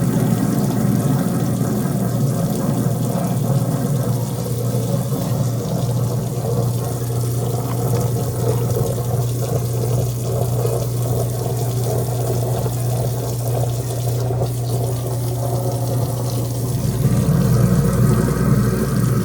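Water running steadily from a kitchen faucet into the sink, with a constant low hum beneath it that swells slightly near the end.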